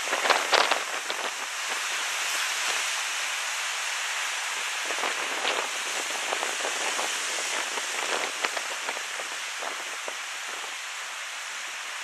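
Sea water washing over rocks: a steady hiss full of small crackles and splashes, a little louder in the first second.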